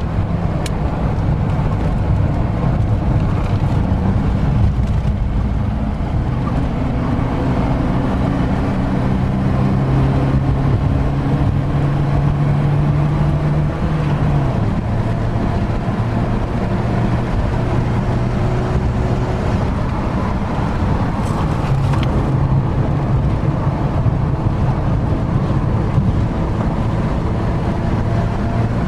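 Car engine heard from inside the cabin under hard driving, its note climbing slowly for several seconds and dropping sharply about halfway through, over steady road and wind noise.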